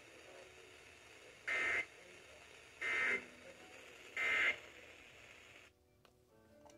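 Emergency Alert System end-of-message (EOM) data tones on a weather radio broadcast: three short buzzy bursts about a second apart, marking the end of the severe thunderstorm warning, over faint radio hiss that drops out near the end.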